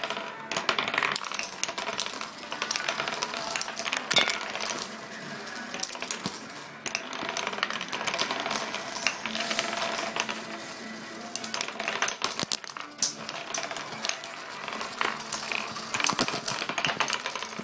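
Wooden nickels spinning on a wooden tabletop: a continuous clatter of several flat wooden discs whirring and wobbling down, rattling and flopping flat.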